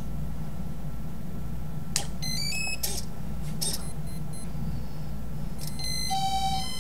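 Spektrum DX9 radio transmitter being switched on: a click and short runs of electronic beeps at stepped pitches, with a cluster of steady beep tones near the end, over a steady low hum.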